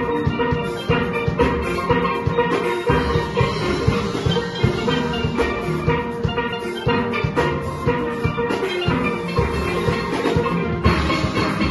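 Steel orchestra playing a soca tune on steelpans, the ringing metallic pans carrying the melody over a steady drum and percussion rhythm.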